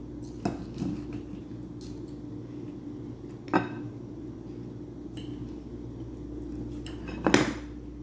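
Cutlery clinking and scraping against a plate or bowl while a steak is being cut and eaten: a few scattered short clinks, the loudest about three and a half seconds in and near the end.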